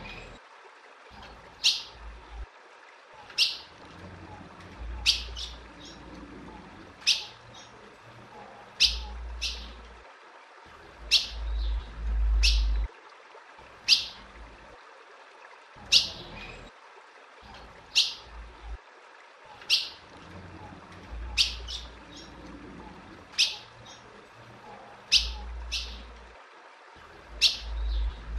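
Female ultramarine grosbeak (azulão) giving short, sharp call notes, roughly one a second, some in quick pairs. Intermittent low rumbles run underneath.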